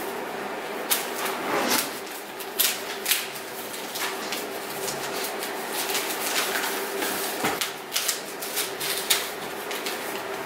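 Gift wrapping paper crackling and tearing as a present is unwrapped, in a run of irregular sharp snaps and rustles over a faint steady hum.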